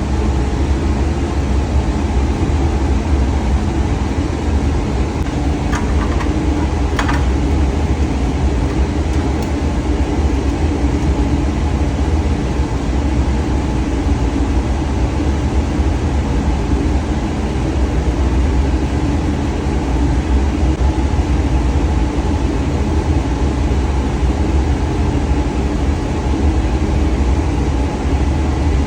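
Steady low drone of boiler-room machinery running, such as burners, blowers and pumps. It holds even throughout, with two light clicks about six and seven seconds in.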